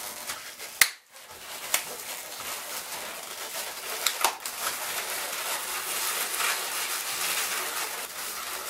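Latex 260 modelling balloons being twisted and handled, rubbing together with squeaks and rustling, with a sharp snap a little under a second in and smaller clicks later on.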